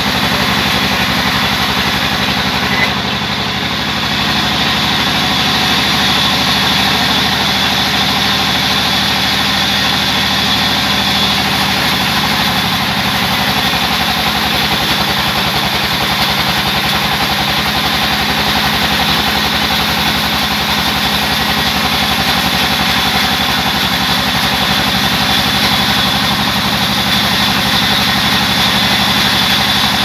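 Sawmill band saw and its drive running steadily: a loud, even machine hum with a constant high whine.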